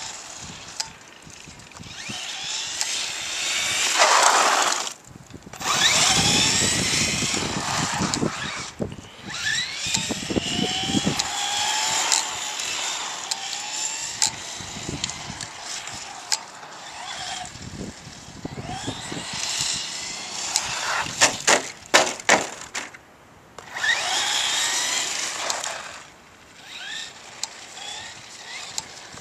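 Brushless electric motor and drivetrain of a Traxxas Slash 4x4 RC truck whining up and down in repeated bursts of throttle and braking, with short lulls between runs. A quick cluster of sharp clicks comes about two-thirds of the way through.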